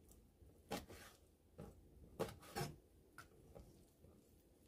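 Knife cutting squid on a cutting board: a handful of faint, separate knocks, about six in four seconds.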